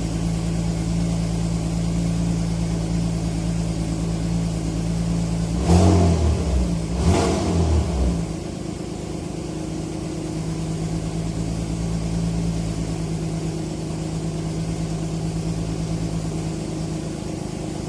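Alfa Romeo GT's 3.2-litre V6 idling steadily, blipped twice on the throttle about six and seven seconds in, then settling back to idle.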